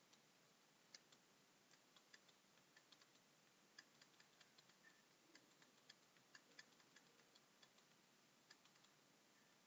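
Faint computer keyboard keystrokes: irregular soft clicks, a few per second, as code is re-indented, over near-silent room hiss.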